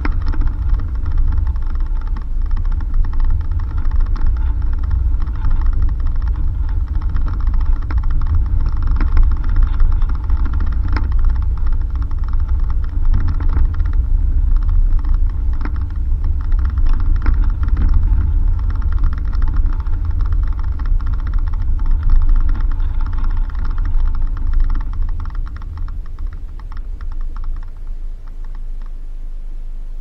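Suzuki Jimny driving over a dirt road: a heavy low rumble of engine and tyres with constant rapid clicking and rattling and a steady whine. It quietens over the last few seconds, leaving a low hum.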